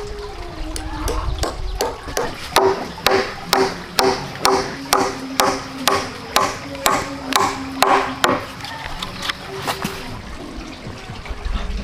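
Hammer driving a nail into a round wooden log pole: a steady run of about a dozen blows, about two a second, each with a short ring, then a few lighter taps.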